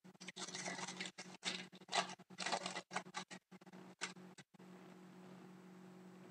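Irregular rustling and crinkling as a hockey card pack's wrapper is torn open and the cards are handled, in a run of bursts that stops about four and a half seconds in.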